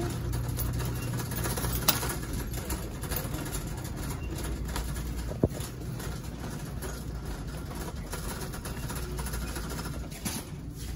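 Shopping cart rolling along a supermarket aisle over a steady low hum of store background noise, with a sharp click about two seconds in and another about five and a half seconds in.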